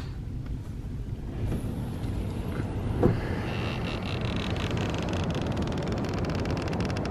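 Steady low rumble of wind and surf on the microphone, with one sharp knock about three seconds in. From just after the knock a faint high buzzing joins in.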